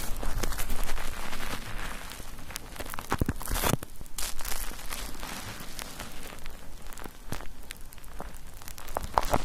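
Bar soap being worked into lather in a wet foaming net, giving wet crackling and squishing sounds with irregular small clicks.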